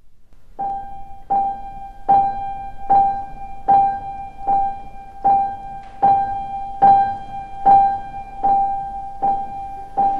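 Music: a single high keyboard note struck over and over, about once every 0.8 seconds, each strike fading before the next.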